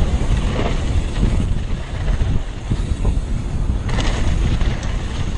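Wind rushing over a bike-mounted camera's microphone on a fast mountain-bike descent down a steep dirt ridge, mixed with tyre and dirt noise. It turns harsher and brighter for a moment about four seconds in.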